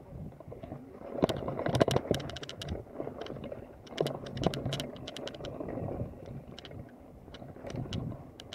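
Mountain bike rattling and clattering over a bumpy dirt track, with a rumble from the tyres. Clusters of sharp knocks come about a second in and again around four seconds in.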